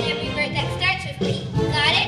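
A group of young children singing a song together over backing music.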